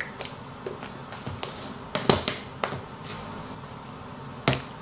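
Sharp plastic clicks and taps from handling a plastic powder tub and scoop: a cluster of clicks about two seconds in and one loud click near the end as the lid goes back on.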